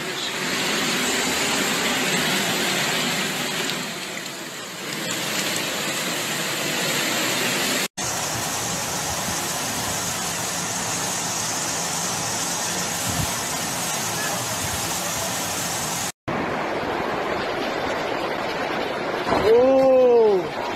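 Muddy floodwater rushing through streets, a steady noisy torrent, heard in three separate recordings broken by two brief cuts. Near the end a person's voice cries out once, its pitch rising and falling; this is the loudest sound.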